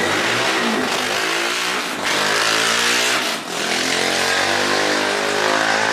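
Motor vehicle engines passing close by on a street, rising in pitch as they accelerate, one after another with a brief dip between them about three and a half seconds in.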